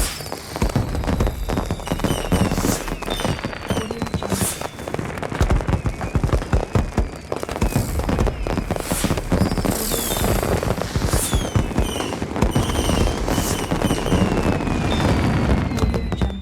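Fireworks display: a dense run of sharp bangs and crackling bursts, with whistling rockets whose whistles fall in pitch. It cuts off near the end.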